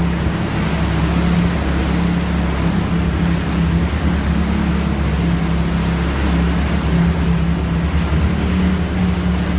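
Polaris RZR side-by-side's engine running at a steady low speed, a constant drone, over a steady rushing hiss from the tyres on the wet tunnel floor.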